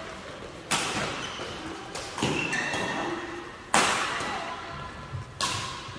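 Badminton racket strokes hitting a shuttlecock in a doubles rally: four sharp hits about a second and a half apart, echoing in a large hall.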